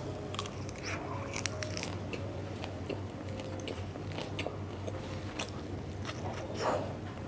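Close-miked eating sounds: a lettuce wrap chewed with crisp crunches and wet mouth clicks, and a further bite near the end.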